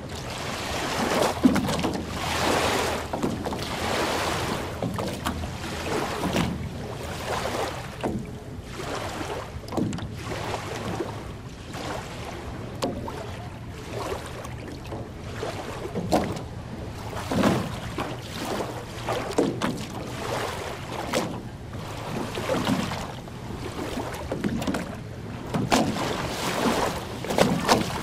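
Small lake waves lapping and splashing on a sandy shore, coming in irregular surges every second or two.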